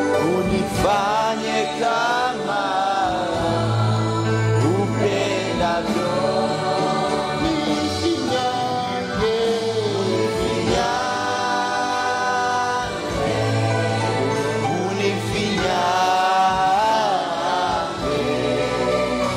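Choir singing a gospel hymn over instrumental backing, with steady low bass notes held under the voices.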